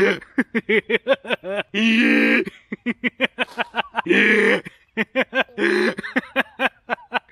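A man laughing hard: quick repeated bursts of laughter, broken by a few longer drawn-out cries.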